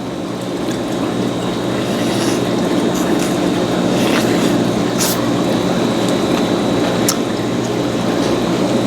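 Close-up eating: wet, squishing chewing of seafood in sauce, with a few sharp clicks.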